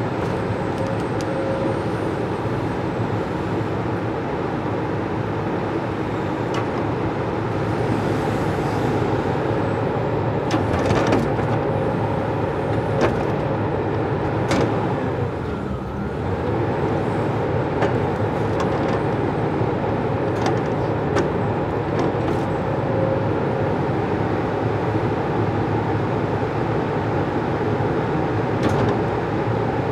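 Diesel engine of a tracked log loader with a grapple, running steadily while it lifts and stacks log rounds, with a few sharp knocks of wood being gripped and set down.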